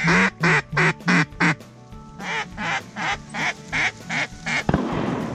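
Duck call blown in quick quacking runs: about five loud quacks, then a softer string of about seven. A single sharp knock comes near the end, followed by rustling.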